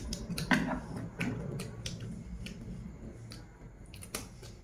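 Close-up eating sounds: two people chewing and smacking their mouths on steamed fish, with scattered short sharp clicks of chopsticks and fingers working the food.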